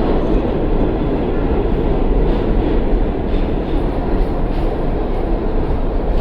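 R46 subway train running along the track: a steady, loud rumble of wheels on rail.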